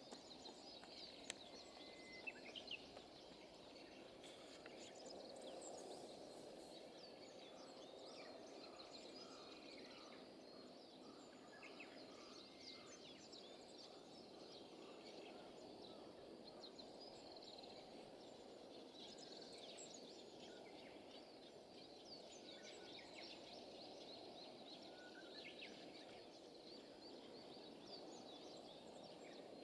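Faint outdoor ambience: a steady low hiss of background noise with many short, high bird chirps scattered throughout.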